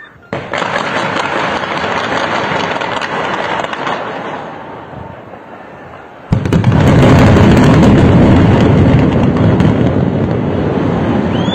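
Blast demolition of a high-rise tower: a sudden rapid crackling string of explosive charges that fades, then about six seconds in a much louder blast that runs on as a deep, continuous rumble of the building collapsing.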